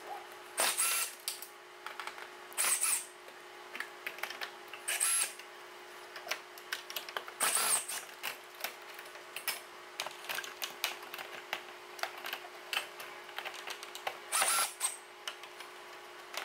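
Cordless drill/driver run in about five short bursts, each a fraction of a second, backing Phillips screws out of a plastic truck grille; each burst opens with a rising motor whine. Light plastic clicks and rattles come between the bursts.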